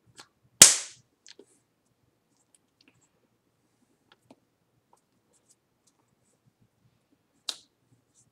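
Hands clapping sharply while signing, a loud clap about half a second in and a smaller one near the end, with faint ticks of hand movement in between.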